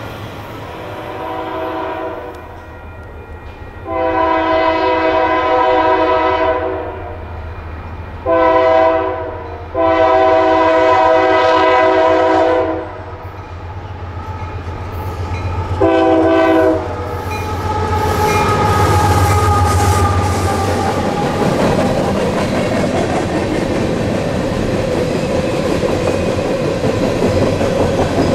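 A Union Pacific C44/60AC diesel locomotive sounds its air horn five times as it approaches: a fainter long blast, then long, short, long and a final short blast, the long-long-short-long being the grade-crossing signal. The locomotive then rumbles past and coal hopper cars roll by with steady wheel clatter.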